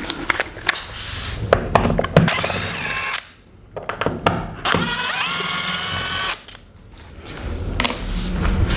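Cordless drill/driver unscrewing a wall plate cover, after a few clicks of handling. It whirs in two runs, the first about a second long and the second about a second and a half, each whine rising as the motor spins up, then holding steady.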